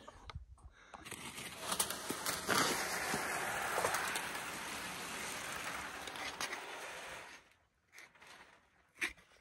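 Ice skate blades scraping over rough, snow-dusted outdoor ice, a steady scraping hiss with scattered clicks that cuts off suddenly about seven seconds in.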